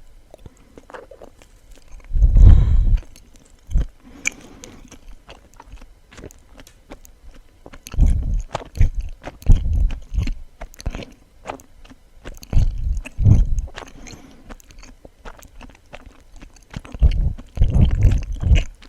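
Close-miked chewing of suama, a soft, sticky Japanese rice-flour cake: wet, sticky mouth clicks and smacks go on throughout, with louder chewing about four times.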